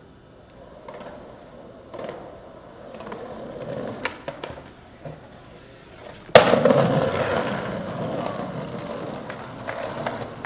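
Skateboard wheels rolling on concrete, with a few sharp board clacks about four seconds in. About six seconds in comes a loud sudden clang as the board hits a steel stair handrail, then a scraping grind along the rail that slowly fades.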